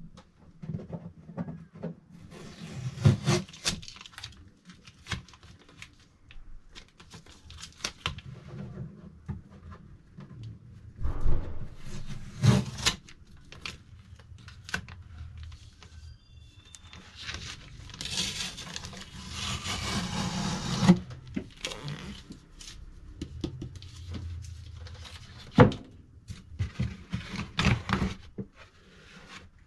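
A 3D printer's cardboard box and packaging being handled and opened: rubbing, scraping and scattered knocks, with a longer stretch of tearing noise about two-thirds of the way through.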